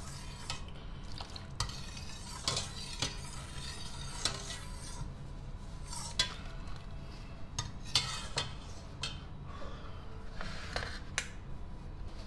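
A metal ladle stirring stock in a stainless steel pot, with irregular clinks and scrapes against the pot's sides and bottom, over a steady low hum.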